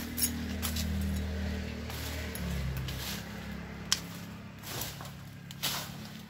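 Overgrown weeds and brush rustling and snapping as they are pulled and cut by hand, with sharp cracks of breaking stems. A steady low hum runs underneath, shifting in pitch around the middle.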